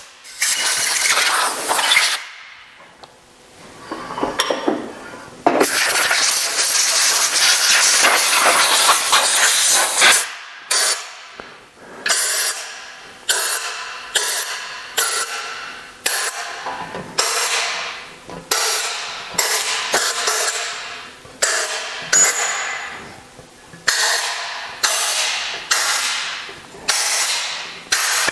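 Compressed-air blow gun blasting air into the threaded stud holes and oil passages of an air-cooled Porsche engine case, clearing out machining residue. There are two longer hisses at first, then a quick run of short blasts about one a second, each starting suddenly and tailing off.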